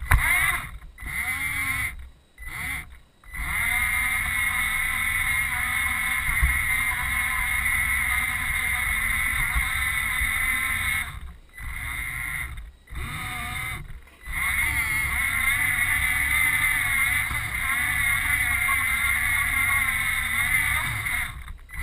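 Small robot's electric drive motors and gears whining steadily, the pitch wavering a little with speed, over a low rumble of wheels on the track. The whine cuts out briefly twice in the first few seconds, three times around the middle, and once near the end.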